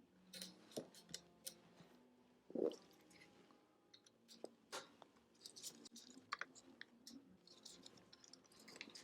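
Faint, scattered clicks and light scrapes of small computer parts and tools being handled, with one slightly louder knock about two and a half seconds in.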